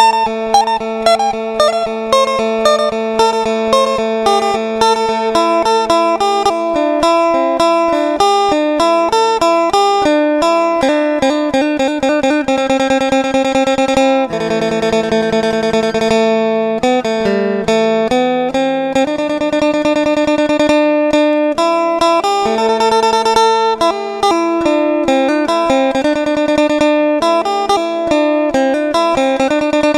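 Instrumental music on a plucked string instrument, a melody of picked notes over sustained lower notes, with a stretch of fast repeated tremolo picking midway.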